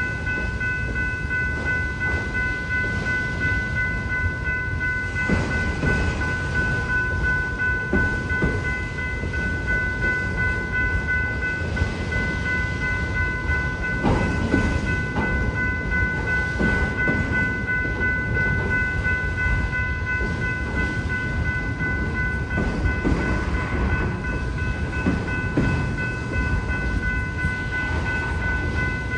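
Freight train cars rolling over the crossing: a steady rumble of wheels on rail with irregular clacks and knocks. Over it, the grade-crossing warning bell rings steadily.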